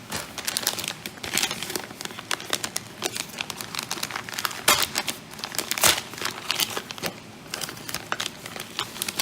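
Packaging crinkling and rustling as it is handled and opened to get at silver bullion coins, with sharp clicks throughout and two louder ones a little past the middle.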